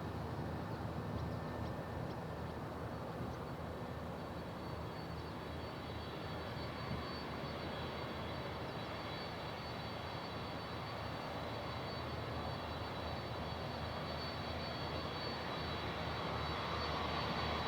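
Boeing 767 jet engines at takeoff power: a steady rush with a high whine, growing slightly louder near the end.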